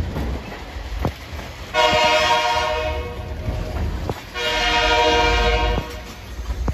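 Diesel freight locomotive's air horn sounding two long blasts, the first a little over two seconds and the second about a second and a half, over the low rumble of tank cars rolling past.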